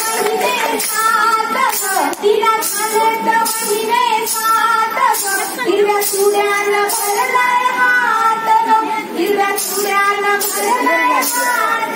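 A woman singing a song into a microphone, amplified over a sound system, with a sharp rhythmic beat about twice a second keeping time.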